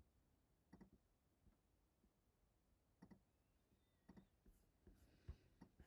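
Near silence with a handful of faint computer mouse clicks.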